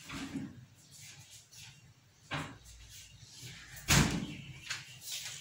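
A few scattered knocks of kitchenware being handled and set down on a counter, the loudest about four seconds in.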